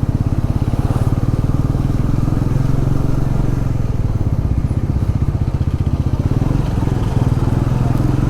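Motorcycle engine running steadily under the rider, its rapid even firing loud and close.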